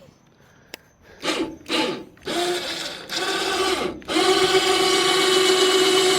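Electric winch on a truck-bed crane running in a few short bursts, then winding in steadily with a motor-and-gear whine from about four seconds in as it lifts a load.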